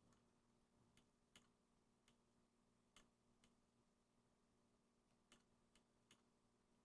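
Faint, sharp snaps at irregular intervals, about nine in seven seconds, from small high-voltage sparks discharging off an ion ray gun's seven-stage diode voltage multiplier. A faint steady hum lies beneath.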